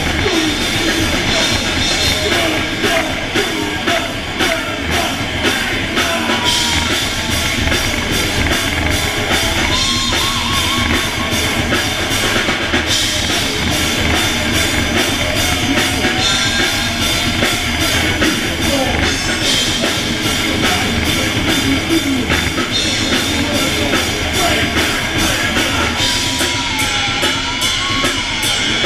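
Thrash metal band playing live: heavily distorted electric guitars and bass over fast drumming with pounding bass drum, loud and without a break.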